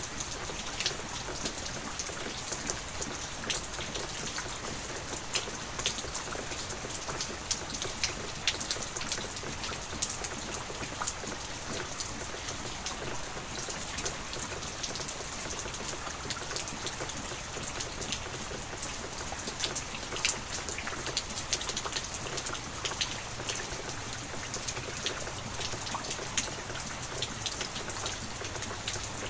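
Light rain falling steadily: an even hiss dotted throughout with many small, sharp drop ticks.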